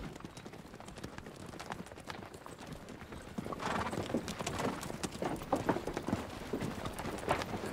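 Hoofbeats of a troop of cavalry horses riding over a dirt track, a dense, irregular clatter of many hooves that grows louder about halfway through as the riders come closer.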